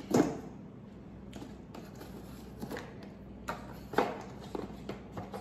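Plastic emergency light bulbs being handled in a cardboard box: about half a dozen light taps and clicks, scattered and irregular. A brief vocal sound comes right at the start.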